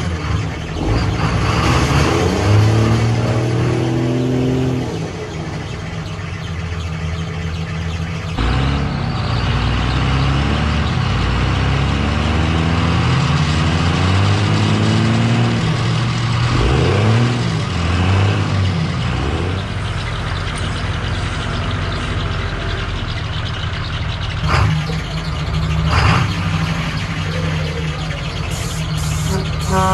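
Heavy truck engines running and revving, their pitch rising and falling under load. The sound changes abruptly about eight seconds in and again near the end.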